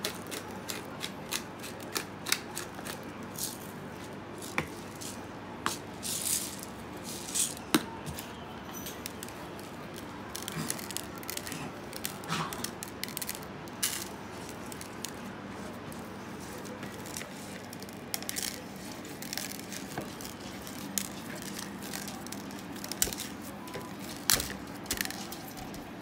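Pepper mill grinding over raw tri-tip steaks, then coarse salt crystals sprinkled onto the meat and ceramic plate and rubbed in by hand: a run of small dry crackling clicks, densest in the first several seconds.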